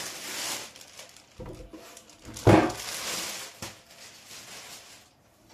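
Handling noise as the record player is moved about: rustling, with one knock about two and a half seconds in that is the loudest sound, and a few small clicks.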